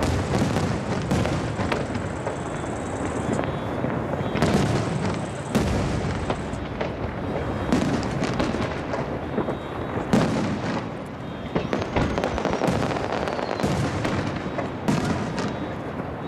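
A rapid barrage of aerial firework shells bursting, the bangs coming close together and overlapping. Their long echoes roll back off the surrounding mountains, with a particularly loud burst about ten seconds in.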